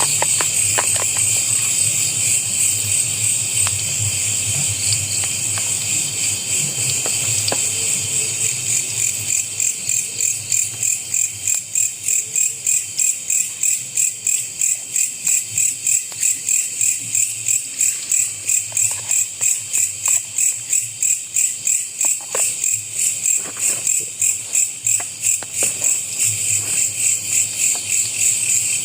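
A chorus of insects trilling steadily at a high pitch. From about a third of the way in it pulses in a regular rhythm of a few beats a second, with a few faint clicks underneath.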